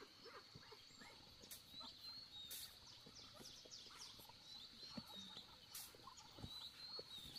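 Faint scattered calls of ducks over a steady, high-pitched insect drone.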